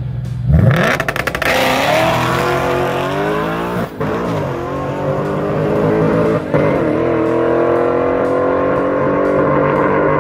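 Ford Mustang launching hard off the drag-strip start line, its engine note climbing steeply in pitch under full throttle. There are two short breaks for gear shifts, about four and six and a half seconds in, before the pitch climbs again.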